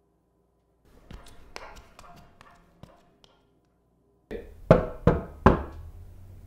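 Three loud, quick knocks about 0.4 s apart, a knock at a door, after a run of fainter light taps.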